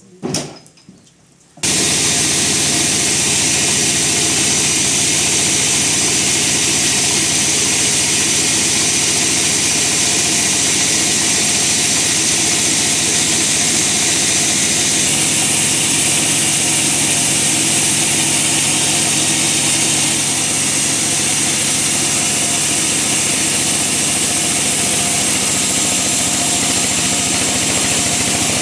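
Bandsaw running steadily as it saws through a log, a loud even noise with a motor hum that starts abruptly about two seconds in.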